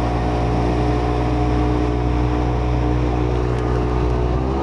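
Jet ski engine running steadily over rushing noise, its pitch rising a little near the end as it speeds up.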